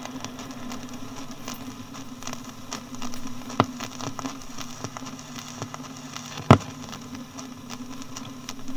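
Surface noise of a vinyl record on a music-centre turntable: a steady crackle and hiss over a low hum, with two loud clicks about three and a half and six and a half seconds in.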